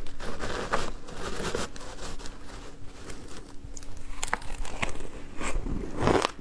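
Metal spoon scraping and scooping shaved ice dusted with matcha powder, then crisp crunching as the ice is bitten and chewed, with the loudest crunch near the end.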